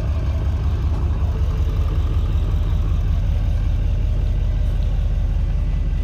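Diesel pickup truck engine idling steadily, a low even running sound.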